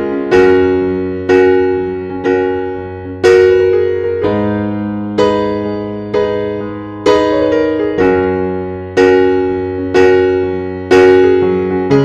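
Background music of slow struck chords, about one a second, each ringing and fading before the next.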